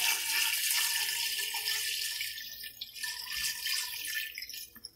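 Water poured in a steady stream into a metal pot over pieces of beef trotters, splashing as the pot fills. The pour thins out in the second half and stops just before the end.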